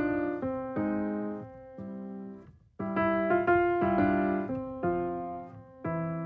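Background piano music: a slow, gentle melody of struck chords that ring and fade, with a brief pause about two and a half seconds in.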